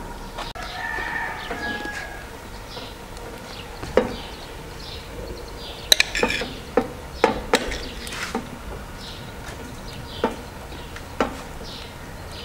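A rooster crows once about a second in, a call lasting a little over a second. Then comes a string of light clinks and taps from a knife against a small metal bowl as butter is pushed off it. Faint small-bird chirps run through it all.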